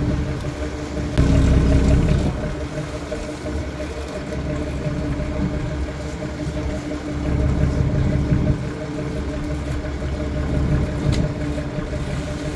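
Fishing boat's engine running steadily at low revs, with a steady hum throughout and louder low rumbles about a second in and again around seven seconds.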